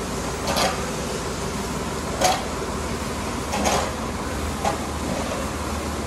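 Tractor engine running steadily with a low hum, with a few brief noisy bursts over it.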